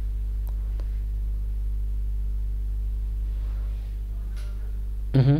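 Steady electrical mains hum, a low buzz made of several even tones, on a telephone-line connection. A short burst of voice comes near the end.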